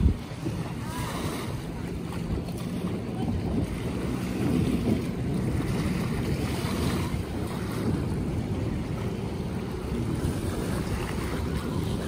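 Wind buffeting the microphone over the steady wash of small waves breaking on a shallow sandy shore, with a brief knock right at the start.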